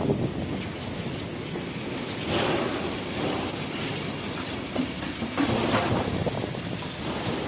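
Strong wind blowing and buffeting the microphone: a steady rushing noise that swells in gusts about two and a half and five and a half seconds in.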